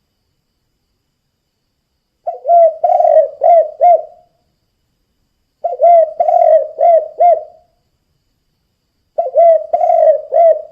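Spotted dove cooing: three phrases of low, repeated coo notes, each lasting about two seconds, with pauses of a second or more between them.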